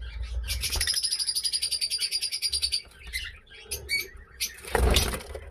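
Masked lovebirds, blue-mask and yellow-collared, chattering: a rapid run of high, fast-repeated chirps lasting about two seconds, then scattered shorter calls and a louder noisy burst near the end.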